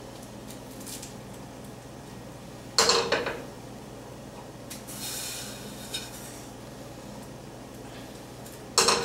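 A skillet is set down on the gas stove's metal grate with a clank and brief ring about three seconds in, and there is another clank near the end. In between comes a soft rustling and crinkling as breadcrumbs are pressed onto fish fillets in a foil-lined pan.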